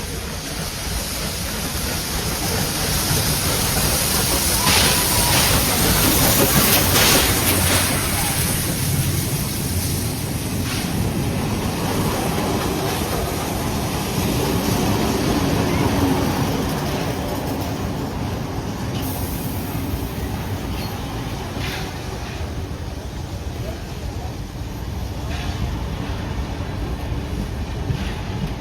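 A passenger train running on the rails, with a deep rumble and wheel and rail noise. It swells to its loudest about five to eight seconds in, then eases, with scattered clicks from the wheels over the track.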